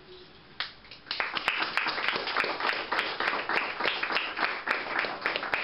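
Audience applauding. A lone clap comes just over half a second in, and steady clapping starts about a second in.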